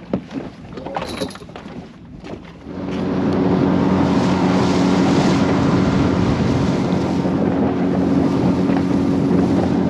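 A few knocks, then about three seconds in a boat motor throttles up and runs steadily as the boat moves off across the water. Wind rushes over the microphone.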